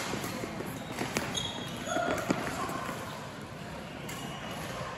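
Badminton rally: sharp racket strikes on the shuttlecock, one about a second in and another just over two seconds in, with short squeaks of court shoes on the floor between them.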